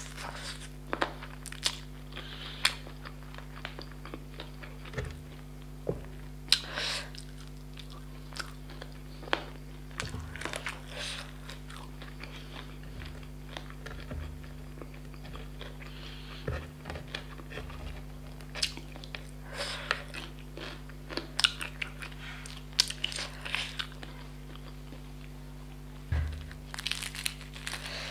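Close-up chewing and crunching of crispy KFC fried chicken coating: scattered crackles and wet mouth sounds, with some louder bites. A steady low electrical hum runs underneath.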